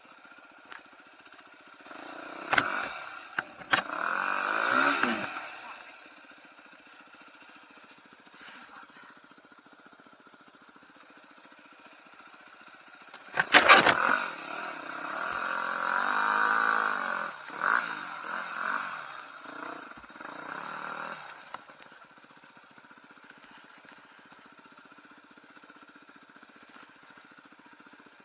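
Off-road trail motorcycle engines revving in two bursts, rising and falling in pitch, about two seconds in and again from about thirteen to twenty-one seconds, over a steady low engine hum. A sharp knock at the start of the second burst is the loudest sound, with a few smaller clicks in the first.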